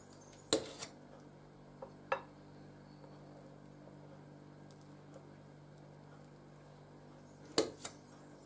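A metal palette knife clinking against the cake plate and the steel mixing bowl while cream is smoothed and scraped off a cake: a few sharp clinks in pairs, about half a second in, about two seconds in, and near the end.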